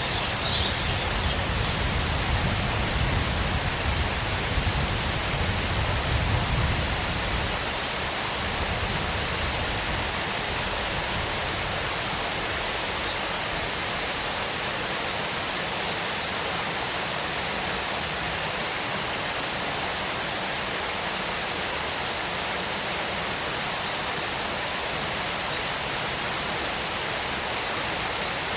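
Waterfall running with a steady rush of falling water, with a heavier low rumble for the first several seconds that then eases off.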